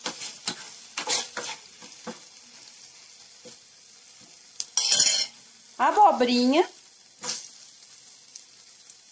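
Carrot slices sizzling steadily in hot fat and leftover honey-balsamic sauce in a frying pan, with a metal spoon clicking and scraping against the pan several times in the first two seconds. About five seconds in, a louder burst of sizzling as zucchini slices go into the pan.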